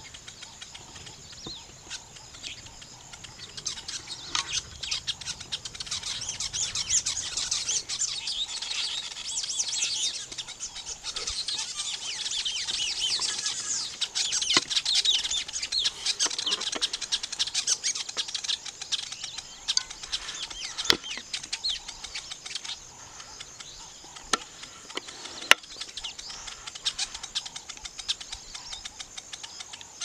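A colony of weaver birds chattering at their nests: many rapid, overlapping high calls, busiest in the middle of the stretch. Two sharp clicks stand out later, the second the loudest sound.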